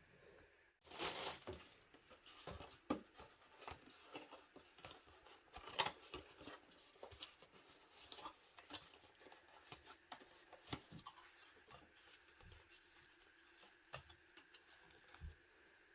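Quiet, scattered light taps and clicks of small objects being handled, with a louder knock about a second in and another near the middle.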